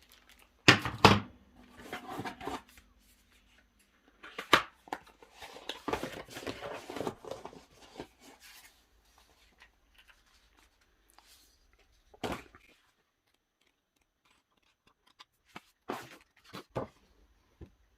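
Packaging being handled during an unboxing: rustling and tearing with several sharp knocks, pausing in a quiet spell partway through.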